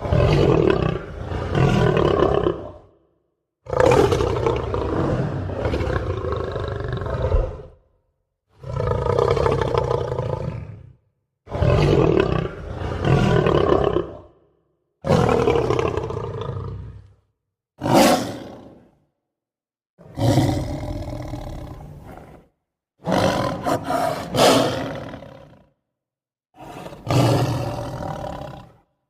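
Lion roaring in about nine separate bouts, each starting loud and falling away, broken by short gaps of complete silence between them.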